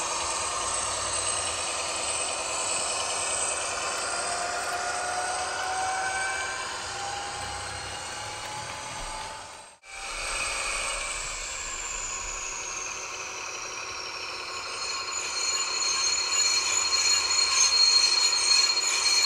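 ESU H0 model of a DB class 216 diesel locomotive running with its sound decoder playing the diesel engine sound, with slowly rising whines in the first half. It fades out briefly near the middle, then comes back and grows louder toward the end.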